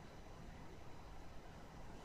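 Faint steady background hiss and room noise, with no hiccup or other distinct sound.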